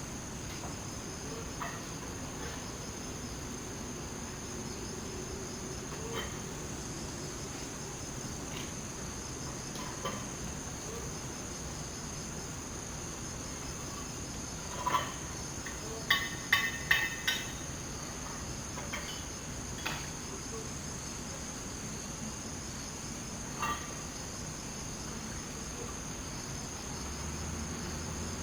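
Cicadas singing in a steady, unbroken high-pitched drone, with a few short sharp clicks, clustered in the middle.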